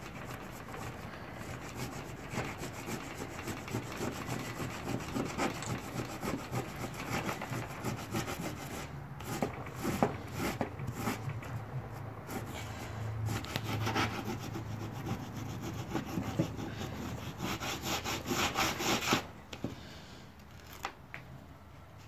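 Rough stone rubbed in quick, short scraping strokes along the flesh side of a bush-tanned wallaby skin's tail, scraping off dried sinew and softening the hide. The scraping stops near the end.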